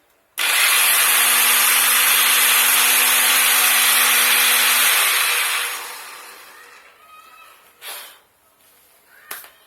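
Electric blender motor switched on and run at full speed as a test after repair: a loud steady whir starts suddenly, holds for about five seconds, then dies away as the motor is switched off and coasts down. Two short knocks follow near the end.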